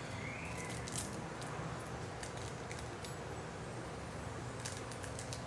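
Foil trading-card pack wrapper being worked open, with a few brief crackles of the wrapper about a second in and again near the end, over a steady low room hum.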